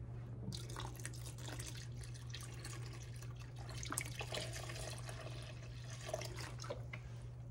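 Chicken broth pouring in a thin stream into a stainless steel bowl of thick gravy, starting about half a second in and splashing into the liquid. The broth is thinning a gravy that is too thick.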